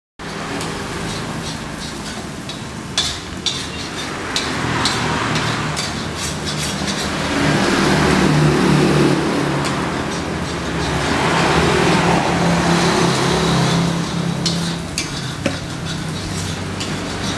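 Fried rice frying and being stirred in a wok over a charcoal stove, with a few sharp utensil clicks a few seconds in and again near the end. Under it, a low drone swells up twice.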